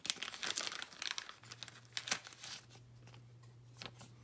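Thin clear plastic crinkling and rustling as trading cards are handled, densest in the first second, then trailing off into scattered crackles.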